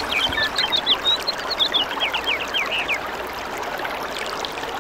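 Toilet flushing: a steady rush of water, with quick high gurgles and squeaks over the first three seconds.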